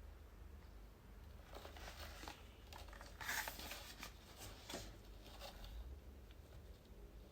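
Faint rustling and crinkling of packaging being handled, in a few short scrapes, the loudest a little past three seconds in.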